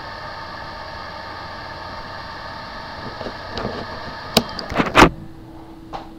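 Steady mechanical whirring from a small machine. About four to five seconds in come a few sharp clicks and knocks, the last one loud. After that the whir stops and a single steady low hum is left.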